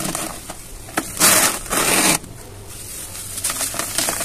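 Hands crushing soft, dry cement domes in a plastic tub: a sharp click about a second in, then two loud bursts of gritty crumbling, followed by softer crackling as the powder falls apart.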